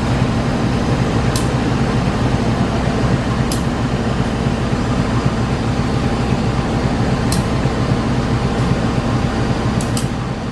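CC 201 diesel-electric locomotive engine idling close by: a steady low drone with its cooling-fan rush. A few faint, sharp high ticks sound over it.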